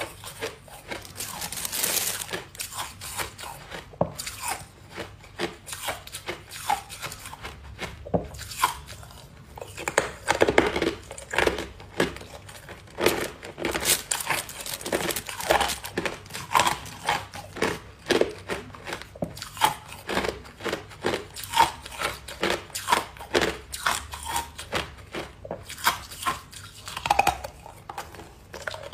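Ice being bitten and chewed: a dense, irregular run of crisp crunches. Around the middle, the plastic bag holding the ice crinkles as a hand rummages in it.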